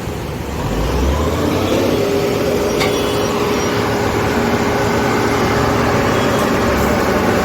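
Heavy diesel engine of road-construction machinery speeding up about a second in, then running steadily at the higher speed, with a single click near three seconds.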